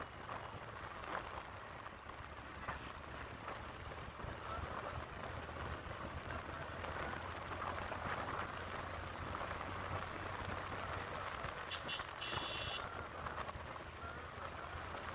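Steady wind rush and road noise of a moving motorcycle, heard from the rider's seat. A brief high-pitched beep sounds about twelve seconds in.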